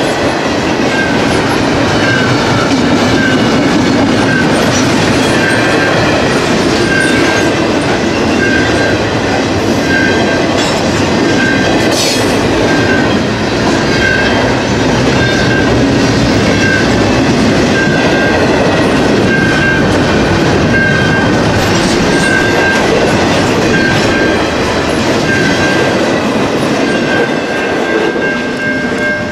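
Double-stack container train rolling past a level crossing: a steady rumble and clatter of steel wheels on the rails. The crossing's warning bell dings about once a second throughout, and the train noise eases slightly near the end.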